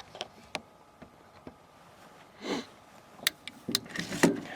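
Sharp clicks and clacks of a .243 AR-10 rifle being loaded with a cartridge, a few at first and a quick cluster near the end. A short sniff comes about halfway through.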